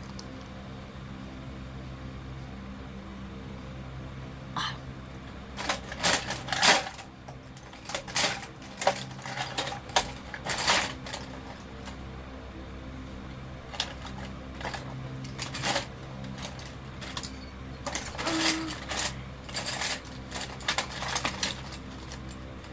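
Small hard plastic items clinking and clattering against each other as they are rummaged through by hand: irregular clicks beginning about four and a half seconds in, over a steady low hum.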